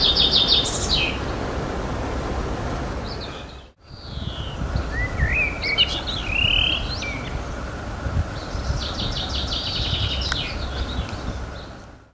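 Songbirds singing in several short phrases of trilled and warbling notes over a steady low background rumble. The sound drops out for an instant about four seconds in.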